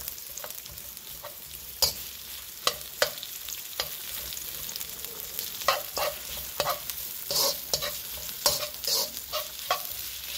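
Sliced red onion and ginger sizzling in hot oil in a pan, with a spatula scraping and knocking against the pan as they are stirred. The strokes come thicker in the second half.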